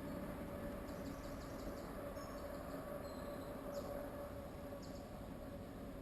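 Steady wind noise on the microphone, with a few faint, high bird chirps: a quick run about a second in and two short sweeps near the end.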